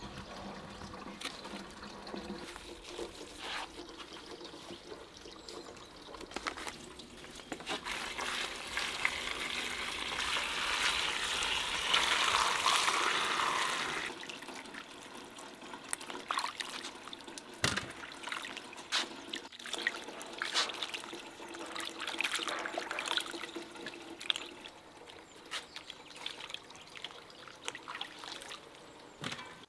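Water pouring in a thin stream onto peaches in an aluminium basin, getting louder and then stopping abruptly about halfway through. After that come scattered small splashes and knocks as the peaches are rinsed and moved about by hand in the water.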